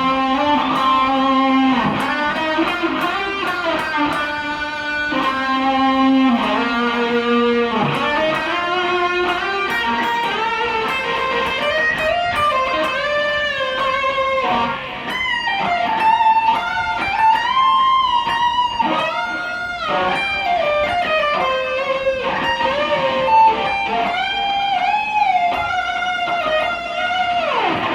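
Electric guitar through a Zoom G5n multi-effects processor set to a lead tone, playing sustained single-note lead lines. The notes bend up and down and waver with vibrato, more so in the second half.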